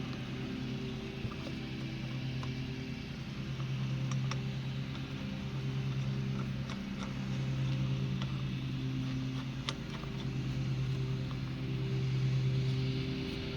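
A steady low mechanical hum with a clear pitch, swelling and easing slightly, with a few light sharp clicks as a steering wheel is fitted onto its column.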